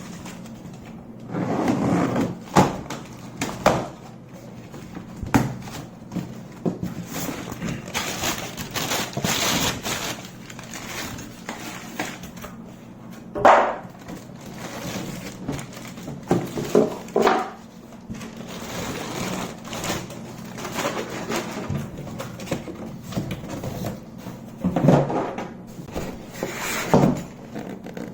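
A cardboard box being unpacked: irregular rustling and scraping of the cardboard and packing, with scattered knocks as fan parts are lifted out and set down.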